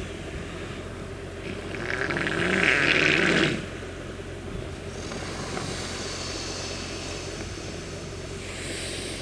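A walrus wallowing in mud gives one loud, rough, rasping noise about two seconds long, starting about a second and a half in. A steady low rumble runs underneath.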